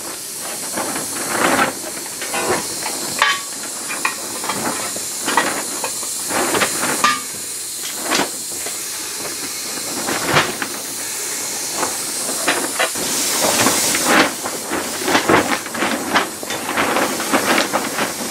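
Air-powered punch/flange tool working the edge of a sheet-steel repair panel: a steady hiss of compressed air with many sharp clicks and snaps as the jaws close on the metal.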